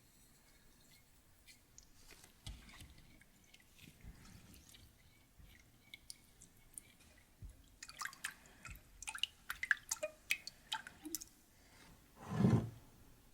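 Kitchen food-preparation handling sounds: scattered soft taps, then a quick run of small sharp clicks and drips, and one short louder thump near the end.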